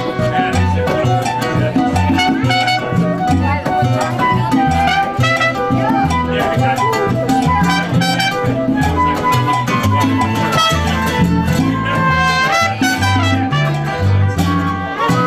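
A live Latin band playing salsa, with flute and trumpet carrying the melody over guitar and a repeating bass line.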